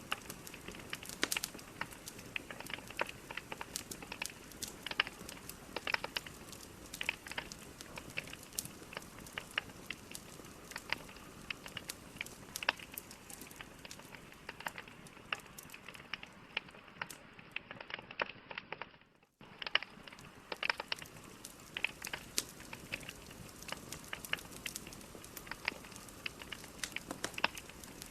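Burning logs in a fireplace crackling and popping: many sharp, irregular snaps over a steady hiss. About nineteen seconds in, the sound briefly drops out and then picks up again.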